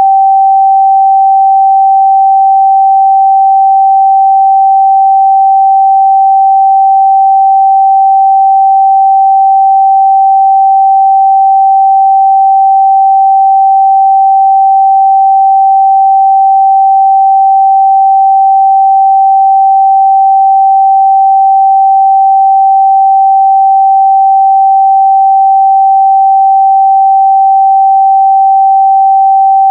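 A pure 777 Hz sine-wave test tone, held steady and loud at one unchanging pitch.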